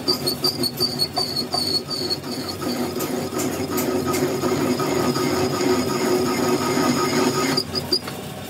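A machine running steadily with a high whine, pulsing quickly for the first couple of seconds, then dropping in level about eight seconds in.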